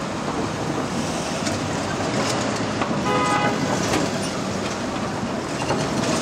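City street traffic with trucks driving past, and a short vehicle horn toot about halfway through.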